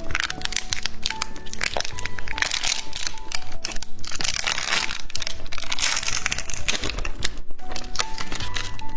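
Plastic snack wrapper crinkling and crackling as it is handled and opened, over background music.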